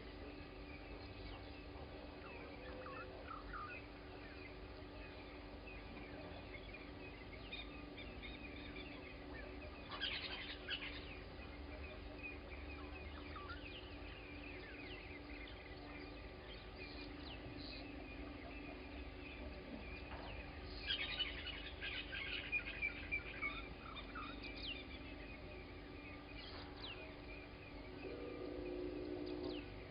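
Morning bird chorus at a bushveld waterhole: many wild birds chirping and calling, with louder clusters of calls about ten seconds in and again around twenty-one to twenty-three seconds, and a lower call near the end.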